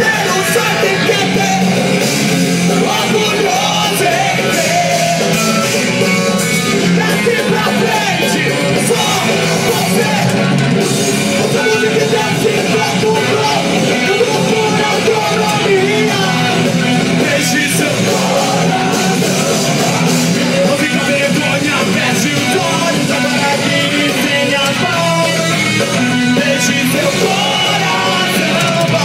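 Hardcore punk band playing live, with shouted and sung vocals over distorted electric guitars and drums, steady and loud without a break.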